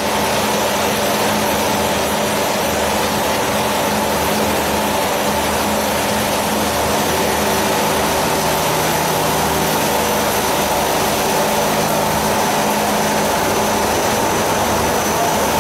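Spindle veneer peeling lathe running: a loud, even machine drone with several steady hums and no breaks.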